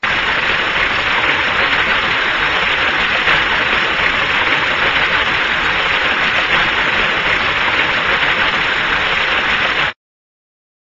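Cartoon flood sound effect: a steady rushing of liquid pouring in, which cuts off suddenly about a second before the end.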